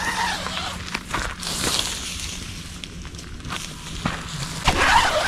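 Nylon tent fabric rustling and crinkling as the zipped door and fly of a Mobi Garden AS Wings 2 tent are pulled open and peeled back, with some crunching of gravel underfoot. It gets louder near the end.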